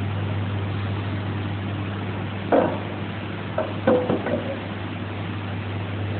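Steady low hum of machinery or electrical equipment, with a sharp knock about two and a half seconds in and a few shorter knocks about a second later.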